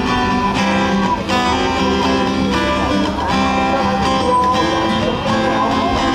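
Music led by an acoustic guitar, playing steadily.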